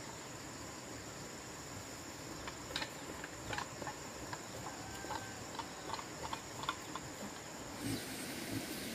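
A steady high insect whine over the undergrowth, with a run of footsteps from about two and a half seconds in: rubber boots on a dirt track. The insect tone cuts out near the end.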